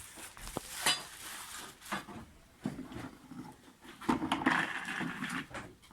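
Hard plastic lawnmower parts clicking, knocking and rattling as they are handled and fitted together, with a longer stretch of scraping and rustling about four seconds in.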